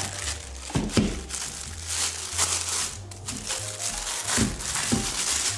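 Thin plastic bag crinkling and rustling as a cube puzzle is pulled out of it by hand.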